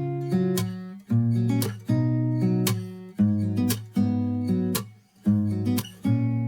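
Background music: acoustic guitar strumming chords about twice a second, each chord ringing and fading.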